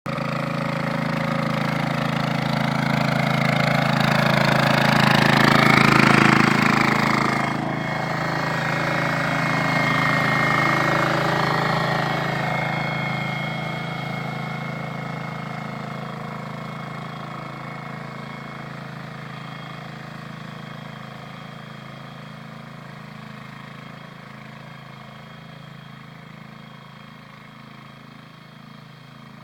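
The 15 HP engine of an AHS 515D rotary tiller running steadily. It is loudest about six seconds in and then grows gradually fainter through the rest.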